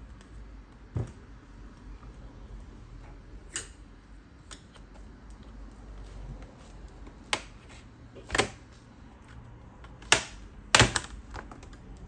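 Bottom cover of a Lenovo Ideapad 720 15IKB laptop being pried off by hand: a scattered series of sharp clicks and snaps as its retaining clips let go, the loudest near the end as the cover comes free.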